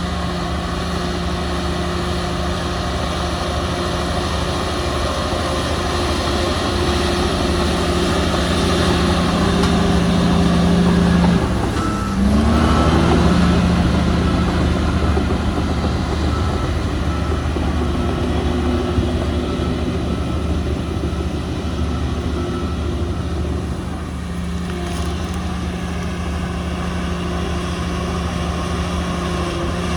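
Heavy diesel earthmoving machinery running steadily under load, its engine note dipping and climbing back up about twelve seconds in. A faint reversing alarm beeps for about ten seconds after that.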